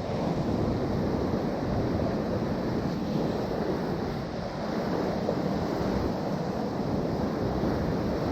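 Steady rush of sea surf with wind buffeting the microphone.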